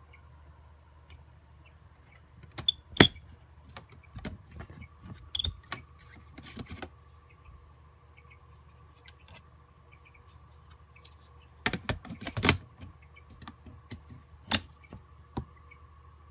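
Irregular sharp clicks and light knocks over a steady low hum, coming in two clusters about three seconds in and about twelve seconds in, with one more loud click near the end.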